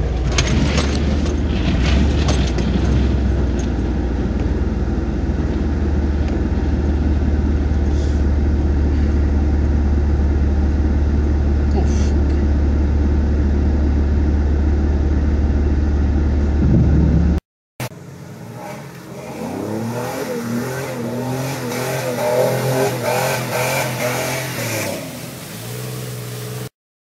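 Off-road vehicle's engine and drivetrain running steadily under load, a deep rumble heard from inside the cab. About two-thirds of the way through it cuts off abruptly, and a quieter passage of shifting pitched tones follows.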